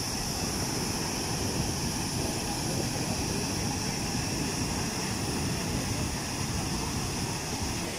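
Turbulent water gushing through a breach in the beach, a steady deep rushing noise with no breaks.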